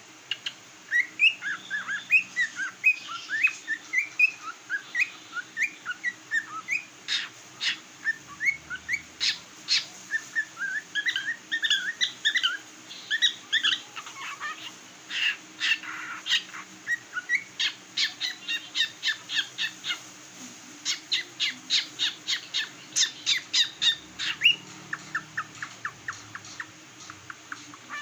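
Cockatiel chirping and whistling in a fast, continuous series of short rising notes mixed with sharp calls.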